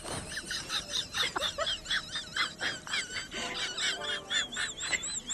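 Birds chirping: rapid high-pitched notes, several a second, many rising and falling in little arcs.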